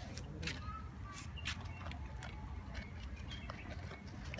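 Cats crunching dry kibble: irregular sharp crunching clicks over a low steady rumble, with a few faint short chirps.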